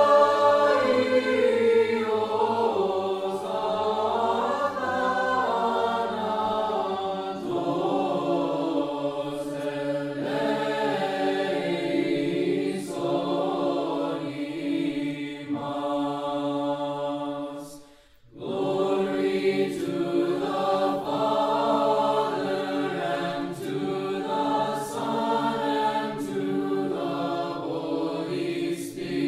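Orthodox church choir singing chant a cappella, several voices in sustained, slowly moving lines, with a low held note underneath for the first seven seconds or so. The singing breaks off briefly about eighteen seconds in, then resumes.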